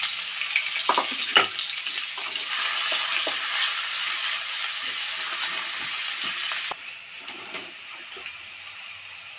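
Sliced onion, ginger and garlic sizzling in hot oil in a metal karahi, stirred with a wooden spatula that knocks and scrapes against the pan, with a couple of sharper knocks about a second in. The sizzle drops suddenly to a quieter level about two-thirds of the way through.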